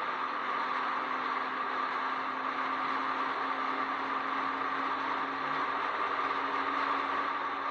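Steady drone of a Jeep driving at speed on paved track: tyre and wind noise with a steady hum, holding an even pitch throughout.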